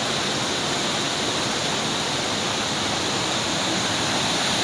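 Tall waterfall crashing down into its plunge pool: a steady, loud rush of falling water.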